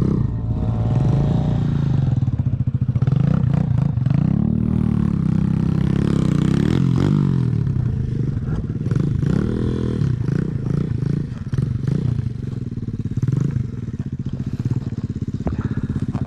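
X-Motos 125 pit bike's single-cylinder four-stroke engine revving hard under load on a steep sandy climb, its pitch rising and falling again and again as the throttle is worked.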